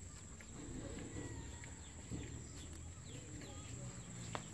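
Faint rural background of scattered short bird chirps, with a low steady hum and one sharp click near the end.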